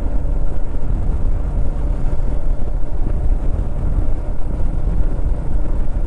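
Royal Enfield Meteor 350's single-cylinder engine running steadily at highway cruising speed, with a low, fluctuating wind rush over the microphone.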